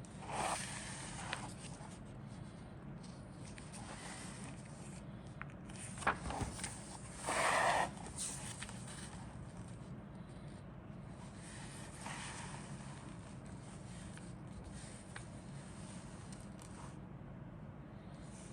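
Intermittent rustling and scraping of model kit parts and packaging being handled, over a steady low hum. There are a couple of sharp clicks about six seconds in and a louder rustle just after them.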